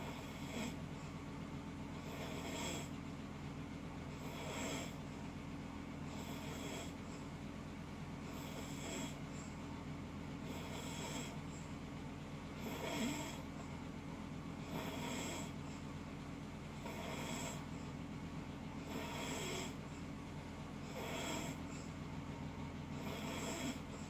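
Loud snoring, one rasping snore about every two seconds, over a steady low hum.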